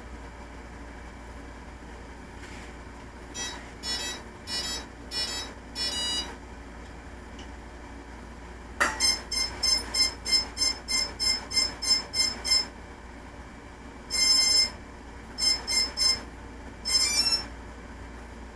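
Electronic status beeps from a HobbyKing Nova quadcopter. First comes a group of five short beeps, then a run of about a dozen quick beeps at roughly three a second. After that there is one longer beep, two short beeps, and a short rising tone near the end.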